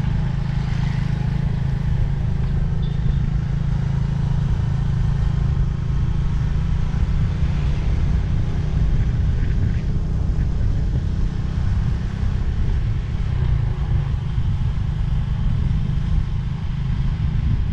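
Motorcycle engine running steadily while riding, heard from the rider's own bike, over a low, constant rumble.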